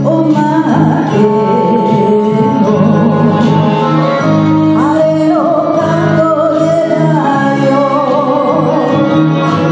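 A woman singing a Japanese enka song into a microphone, with instrumental accompaniment.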